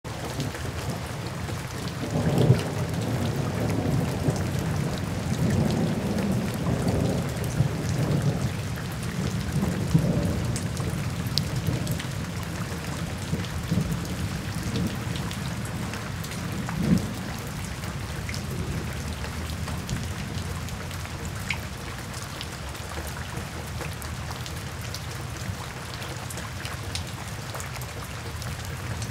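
Steady rain with low rolling thunder. The thunder rumble is heaviest over the first ten seconds, with a few louder swells, then eases while the rain keeps on.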